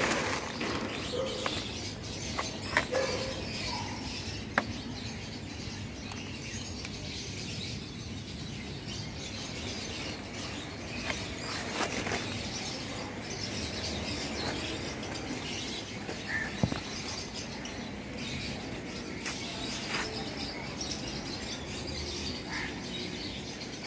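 Small birds chirping now and then over steady outdoor background noise, with a few sharp clicks.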